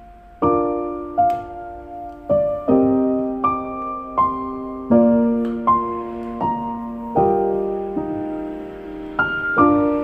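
Background piano music: a slow, gentle melody of single notes and chords, each struck and left ringing as it fades.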